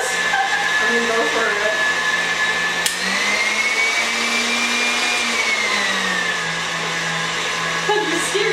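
KitchenAid Ultra Power tilt-head stand mixer running, its motor whining steadily as the whisk beats cream in a steel bowl. About three seconds in a click is followed by the motor speeding up to a higher whine, which holds for a couple of seconds and then drops back down.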